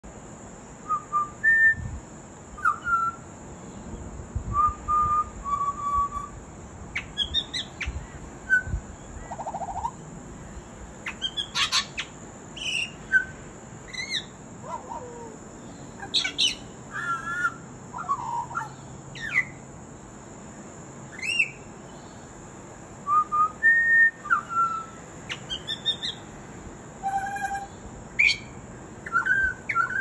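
Pied butcherbird singing a varied run of short whistled notes, rising and falling glides and rapid clicky notes, in phrases broken by short pauses, mimicking other sounds.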